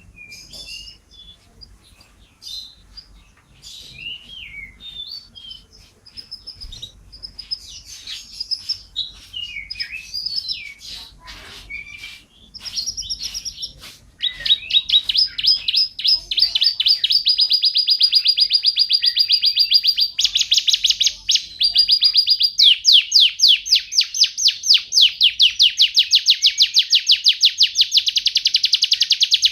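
Canary singing: scattered chirps and short whistled phrases at first, then from about halfway long, fast trills that run almost without a break.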